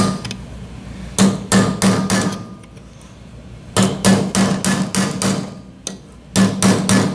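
Hammer blows on a steel punch set against the crankshaft oil seal in an aluminium two-stroke crankcase half, driving the seal out. The blows come in three quick runs of several strikes a second, with short pauses between.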